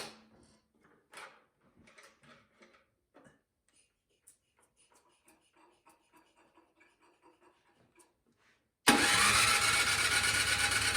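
Faint clicks and taps, then near the end a small gasoline engine suddenly starts and runs loudly and steadily.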